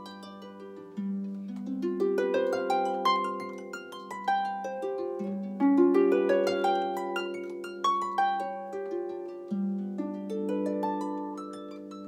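Solo harp: plucked strings ringing over one another in slow broken chords, a low bass note struck anew about every four seconds with a melody of higher notes above it.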